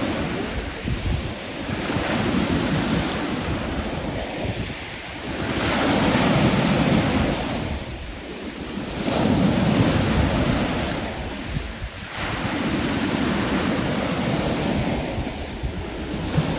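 Sea waves washing in, swelling and easing every three to four seconds, with wind rumbling on the microphone.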